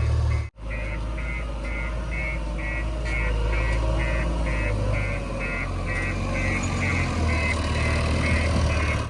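Heavy diesel engine running steadily, with a high electronic beep repeating about twice a second over it.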